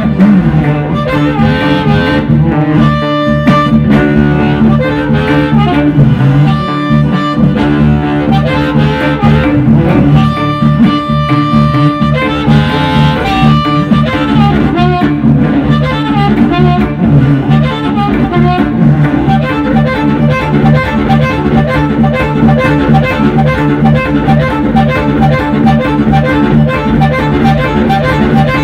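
Electric blues instrumental: an amplified harmonica playing sustained, bending notes over a rhythmic electric guitar, with no singing.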